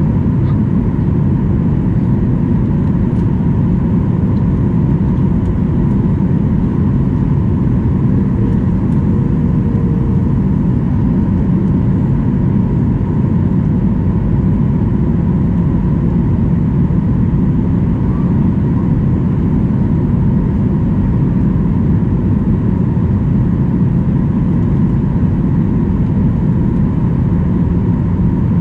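Steady in-flight cabin noise of a Boeing 737-800 heard from a window seat over the wing: a low rumble of airflow and CFM56-7B turbofan engines, with a thin steady whine above it.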